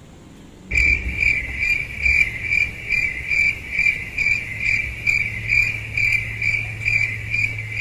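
Cricket chirping: a loud, high, pulsing trill of about two to three pulses a second that starts abruptly about a second in, over a low steady hum.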